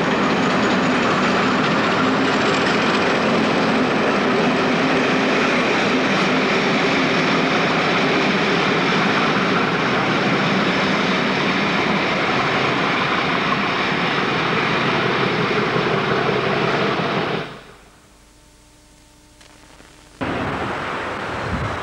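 Diesel-hauled passenger train pulling out of the station, its locomotive engine working with a steady drone and the coaches running past. It cuts off about 17 seconds in to a low hiss, and near the end a new outdoor recording starts with wind on the microphone.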